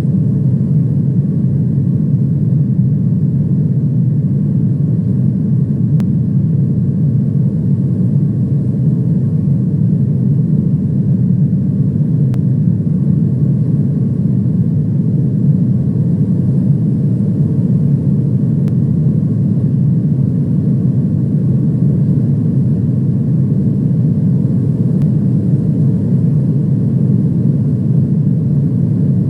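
Airliner cabin noise in flight: a steady low rumble of engines and rushing air that does not change.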